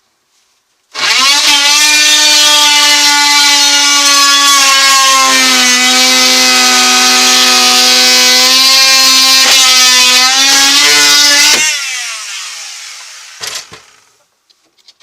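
Electric power tool cutting through a wooden panel: a loud, steady buzzing whine that starts about a second in, drops a little in pitch midway as it bites, and stops after about ten seconds.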